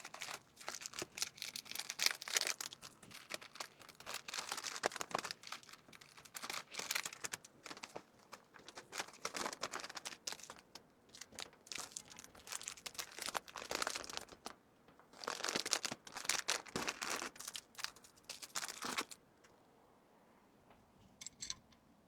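Plastic packaging crinkling and rustling in irregular bursts as small wrapped items are handled and packed, stopping about three seconds before the end.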